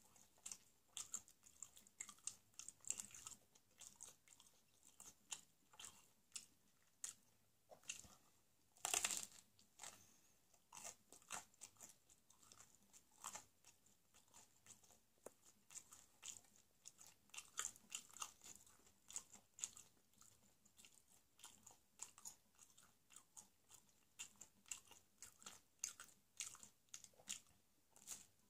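Close-up mouth sounds of a person eating square pizza: a steady run of small, wet chewing clicks and crunches of the bready crust, with a louder crunch about nine seconds in.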